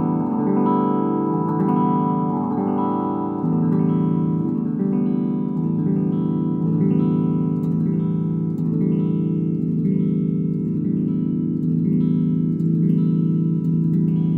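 Electric guitar chords strummed over and over through an Ampeg V4 tube amp head while its mid-range control, on the 1000 Hz setting, is turned, so the tone shifts. The upper-middle ring is strong at first and drops away about four seconds in.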